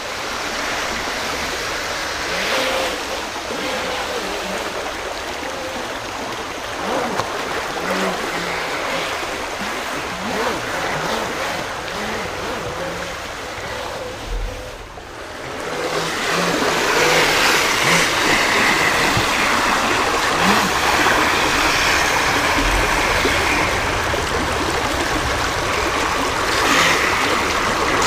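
Creek water rushing over a shallow rocky riffle, mixed with the running of a small RC jet boat's electric motor and jet drive. About halfway through the sound dips briefly, then comes back louder.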